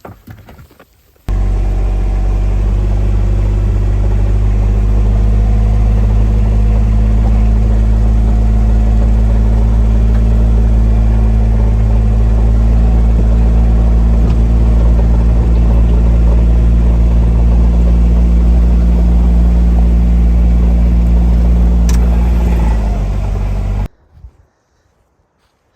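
Vehicle engine running steadily at close range. Its pitch dips just before it stops abruptly.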